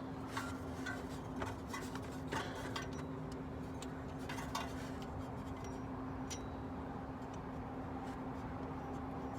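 Scattered light metallic clicks and taps from hand work on the idler pulley bolt as it is loosened and removed, most of them in the first half, over a steady low hum.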